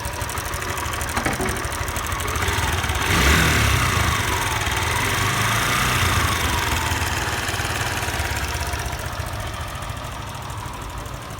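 Suzuki Fi motorcycle engine running with an increased mechanical engine noise. It is revved up about three seconds in and settles back toward idle. The mechanic means to check the cam, timing chain and timing chain guide for the cause.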